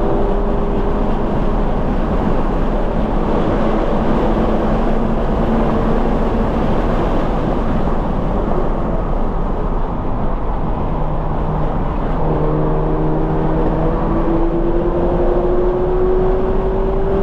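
2020 Toyota 86's flat-four engine with a Corsa cat-back exhaust, driven hard on a track lap over heavy road and wind noise. The engine note holds fairly steady, drops lower about ten seconds in, then rises steadily as the car accelerates.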